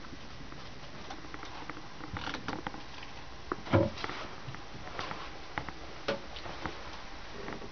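Irregular light clicks, creaks and rustles over a steady hiss, with one louder knock a little under four seconds in: handling noise and footsteps as a handheld camera is moved about inside a small yacht's cabin.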